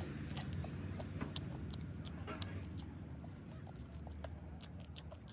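Close-up eating sounds: biting and chewing into a fried piece of food, with irregular wet mouth clicks over a steady low background rumble.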